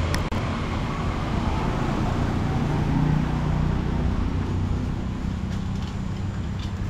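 Street traffic noise: a motor vehicle's engine running past, loudest about three seconds in, over a steady low road rumble.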